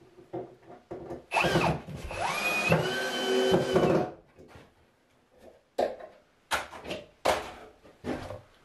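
Power drill running for about two and a half seconds, starting about a second in, its pitch rising as it speeds up and then holding steady, as it works on a wooden closet frame. Several sharp knocks follow in the last few seconds.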